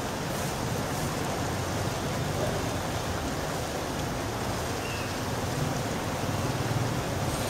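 Steady rain falling on a street, with the low sound of a vehicle engine moving slowly along the wet road, a little louder near the end.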